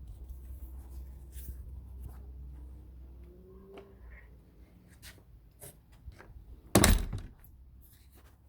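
A door being shut with a single loud thunk about seven seconds in, after a few light clicks and knocks.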